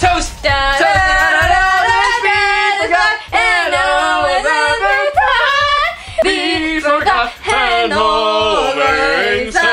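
Voices singing a wordless-sounding melody with long held and sliding notes, a woman's voice the most prominent, with little or no accompaniment.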